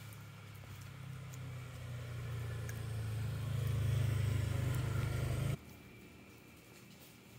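A motor vehicle's engine hums, growing steadily louder as it approaches, then cuts off suddenly about five and a half seconds in.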